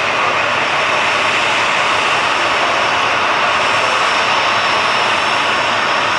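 Boeing 737-800's twin CFM56-7B turbofan engines running at taxi thrust: a steady jet rush with a thin high whine, unchanging throughout.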